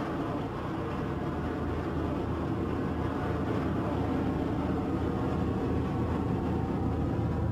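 Steady engine noise of a jet aircraft taking off with rocket-assisted take-off units, growing slowly louder as it climbs away.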